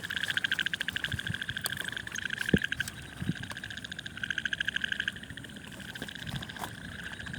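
Frogs calling at night in rapid pulsed trills, repeated in bouts of about a second, with a few faint knocks in between.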